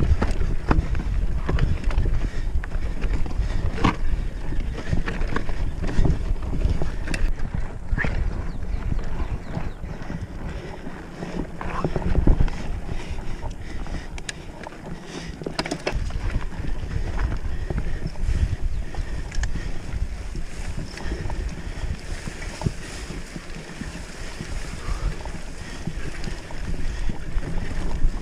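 Mountain bike clattering and rattling over a rocky trail, with frequent knocks as the wheels and frame hit stones. Wind buffets the microphone as a steady low rumble.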